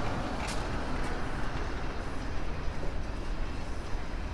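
Steady rumble of road and engine noise inside a moving car, picked up by a dashcam as the car rolls slowly toward a red light.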